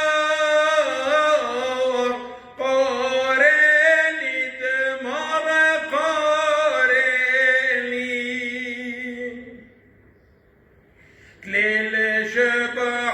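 Male voice chanting a Syriac church hymn in long, ornamented held notes. About eight seconds in, a held note fades away; after a short pause the chant starts again.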